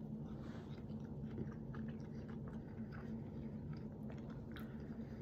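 A person chewing a soft cream-and-fruit sandwich with close, irregular mouth sounds, over a steady low hum.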